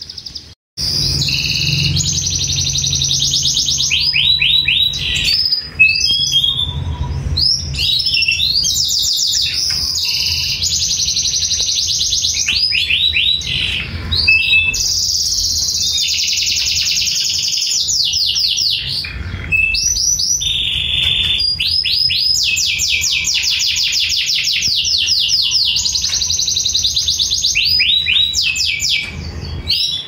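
Male domestic canary singing his courtship song to a female: a long, nearly unbroken song of fast trills and rolling repeated phrases, high-pitched.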